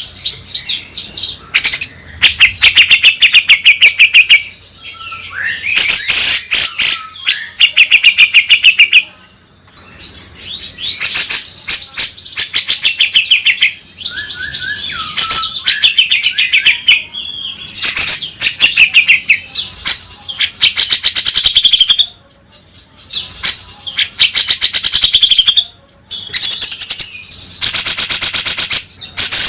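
Grey-cheeked bulbul (cucak jenggot) singing in loud, rapid rattling and chattering phrases of quickly repeated notes, with short pauses between phrases.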